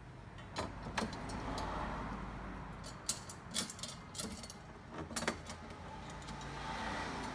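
Small metallic clicks and clinks, about seven in all, as a screw and a steel TV wall-mount bracket arm are handled while a bolt is fitted into the back of a TV by hand.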